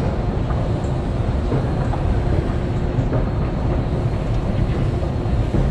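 Steady low noise of a metro station heard while riding an escalator, with a faint steady hum and no distinct events.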